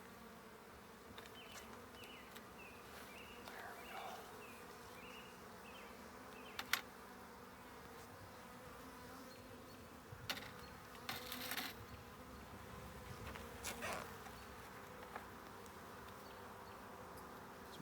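Honeybees buzzing in a steady hum around an open hive. A few sharp clicks cut through it, with a short rustle about eleven seconds in.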